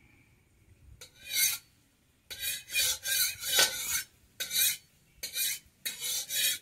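Rasping scraping strokes, roughly two a second, starting about a second in.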